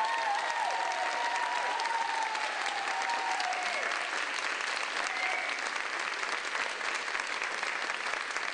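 Audience applauding steadily, with cheering over the top in the first four seconds.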